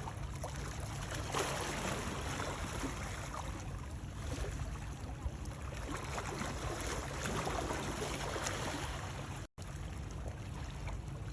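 Ocean water ambience: water sloshing and lapping in slow swells, with small crackles. It cuts to silence for an instant about nine and a half seconds in.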